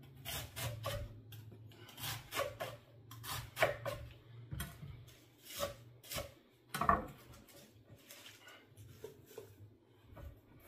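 Chef's knife chopping lettuce on a wooden cutting board: a run of irregular chops, the blade knocking the board several times a second, thinning out near the end.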